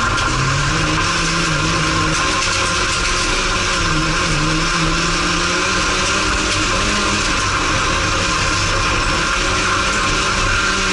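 Renault racing car's engine heard from inside the cabin, running hard on a dirt track, its revs rising and falling several times as it goes through gears and lifts for corners, over steady road and wind noise.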